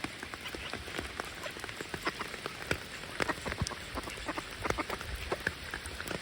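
Rain falling, a steady hiss with many irregular drips and drop ticks close by.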